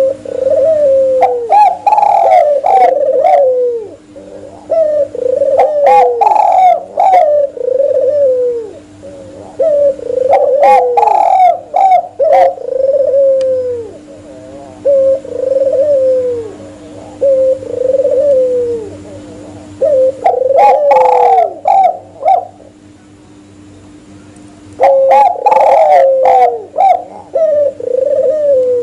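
Spotted dove and albino Barbary dove (puter) cooing over and over in repeated phrases, with two short pauses, over a steady low hum.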